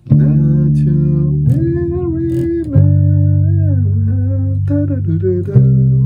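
Electric bass guitar playing a slow line of long, sustained plucked notes, four in all: a new note comes in about a second and a half in, another near three seconds, and the last about a second before the end.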